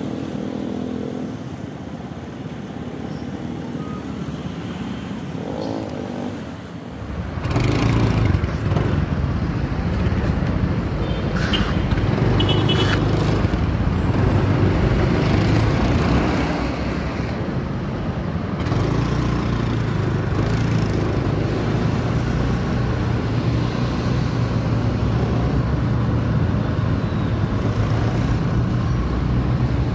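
Road traffic on a city street: the steady noise of passing cars and motorcycles, growing louder about seven seconds in.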